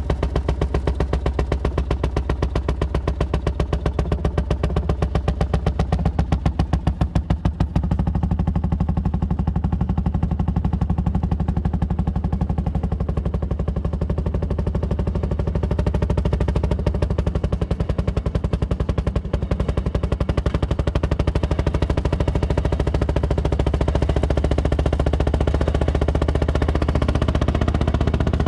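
Rail speeder's small engine running steadily under way, a rapid, even popping of exhaust beats over a heavy low drone, with a brief dip in level about seven seconds in.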